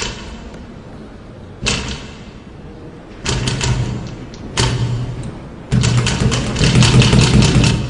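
A series of sudden thuds, four in all, each followed by a held low rumble with a fast rattle over it, growing louder with each entry.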